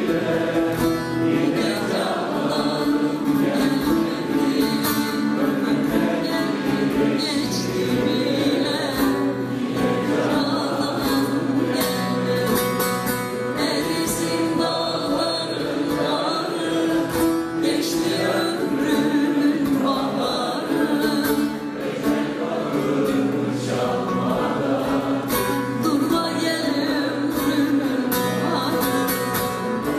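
Live acoustic Turkish folk song (türkü) sung by several voices over plucked bağlama accompaniment.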